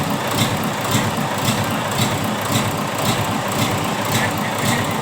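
Mitsubishi Fuso 8DC8 V8 diesel engine idling steadily, with a sharp tick repeating about twice a second over the rumble.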